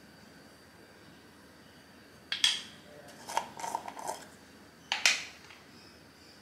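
A sharp knock, then the plastic screw cap of a peanut butter jar twisted off with a short run of clicks and rattles, then a second sharp knock about a second later as the cap is set down on the counter.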